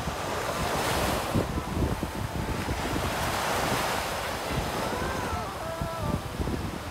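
Small waves washing up and breaking on a sandy beach, with wind buffeting the microphone.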